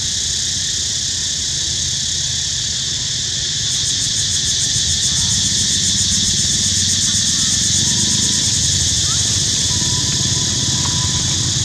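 Insects buzzing steadily in a high chorus, with a fast pulsing trill joining in about four seconds in, over a low steady rumble.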